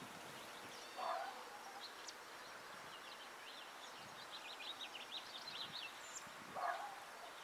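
Small birds chirping in the background over a faint steady outdoor hush, with a quick run of high chirps through the middle. Two short, louder sounds stand out, about a second in and near the end.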